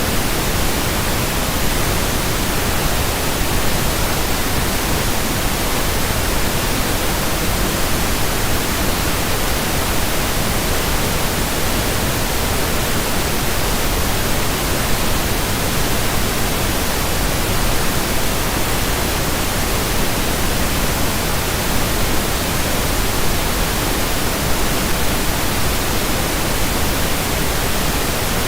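Steady pink noise: an even, unchanging hiss spread across the whole range, with no events or changes.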